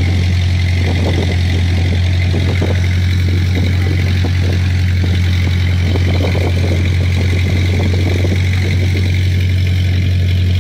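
Fishing boat's engine running steadily at a constant speed, a loud, unbroken low drone.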